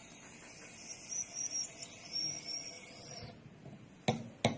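Nitro cold brew coffee pouring from a mini keg's tap, a steady hiss with a faint wavering high whistle, which stops about three seconds in. Two sharp knocks follow near the end.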